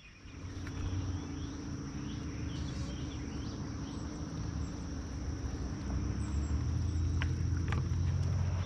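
A boat motor running with a steady low hum that starts at the outset and grows a little louder about six seconds in, over a steady high-pitched drone of insects.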